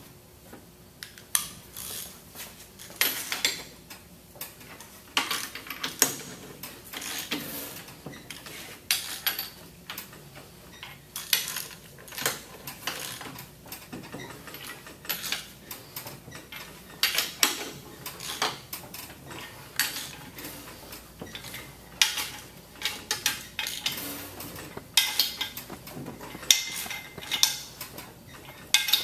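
Hand wrench working the metal bolts on the flange of a CheckPoint 8428 chemical injection pump motor. It makes irregular metallic clinks and clicks as the bolts are snugged down in turn, with a short metallic ring near the end.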